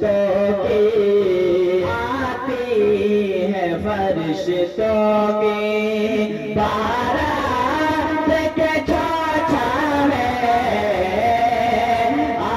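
Two male voices singing an Urdu devotional manqabat through microphones, with long, ornamented melodic lines and no instruments. A steady low held note sounds under the melody at times.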